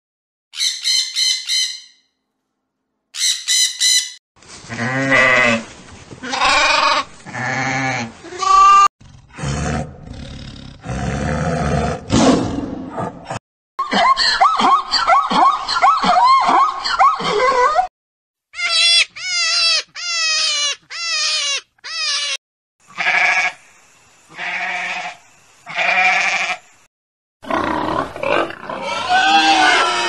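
A series of separate animal call recordings, one after another with short gaps. A parrot squawks at the start, then come bleating calls, and later a zebra's calls among further animal cries.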